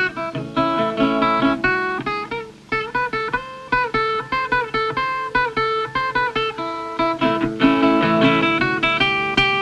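Solo guitar music played as a quick run of plucked notes, with a few notes bent in pitch in the middle.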